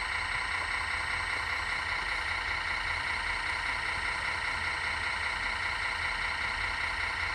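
Radio-controlled model excavator working, a steady mechanical whine over a low hum.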